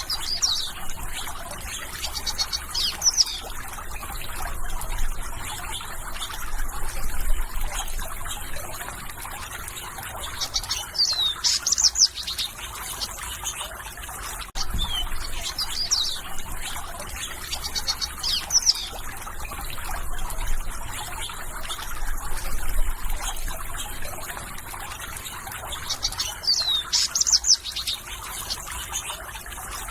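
Birds singing: short high chirping and whistled phrases, some falling in pitch, come every couple of seconds over a steady background hiss.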